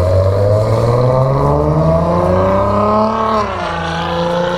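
A motor vehicle's engine accelerating: its pitch climbs steadily for about three seconds, then drops and levels off.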